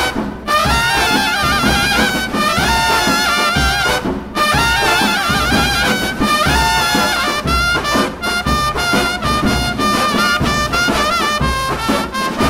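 Drum and bugle corps playing loudly: bugles play a brisk passage of short, punchy figures and held notes with vibrato, and drums beat underneath. Twice, near the start and about four seconds in, the band stops for a short break.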